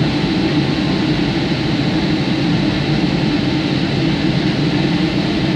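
Steady cabin noise of a Boeing 757-200 in flight, heard from a window seat: an even, unbroken drone of engines and airflow, strongest in the low range.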